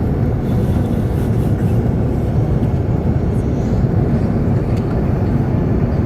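Steady low cabin roar inside the upper deck of a British Airways Airbus A380 in flight on approach, from airflow over the fuselage and its Rolls-Royce Trent 900 engines.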